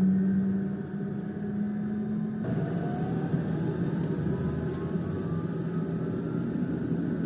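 Cabin sound of the Pilatus PC-12's single Pratt & Whitney PT6A turboprop engine running on the ground: a steady drone. About two and a half seconds in the sound shifts, and a whine starts to rise slowly in pitch.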